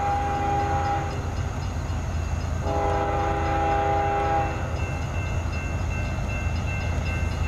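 Norfolk Southern diesel locomotive's air horn sounding a chord of several tones in separate blasts: one ending about a second in, and another of about two seconds starting near the three-second mark. A steady low rumble of the approaching train runs underneath.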